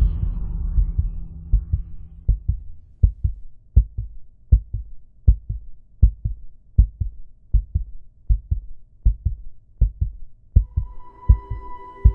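Heartbeat sound effect: paired low thumps (lub-dub) repeating steadily about every three quarters of a second, out of a low rumble that fades over the first second or so. About ten and a half seconds in, a steady high droning tone joins it.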